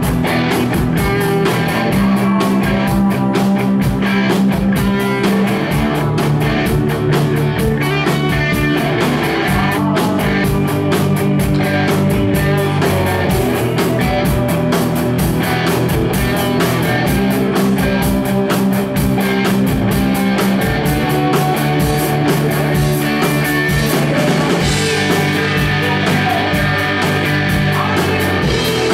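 Live rock band playing: electric guitar and keyboard over a steady drum beat.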